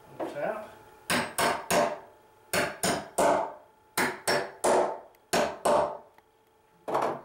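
Hammer tapping motor-mount bolts into a wooden sewing-table top: about a dozen sharp blows in quick groups of two or three, with a last single blow near the end.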